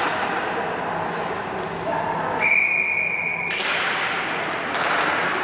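An ice hockey referee's whistle gives a single steady blast of about a second, partway through, signalling a stoppage in play. Voices and rink noise from the game sound under it.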